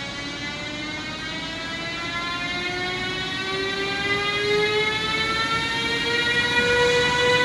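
ÖBB Siemens Vectron electric locomotive accelerating out of the station with a freight train. Its electric traction gives a stack of whining tones that rise slowly in pitch and grow louder as it gathers speed, with a second rising tone joining about halfway through.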